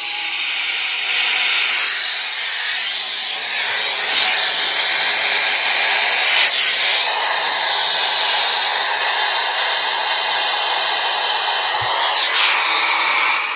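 Loud steady static hiss from a radio receiver on a weak or noisy signal, swelling a little about four seconds in and staying loud, with no broadcast message audible through it.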